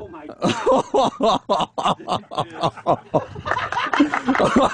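Excited laughter from men: quick, repeated ha's whose pitch bends up and down.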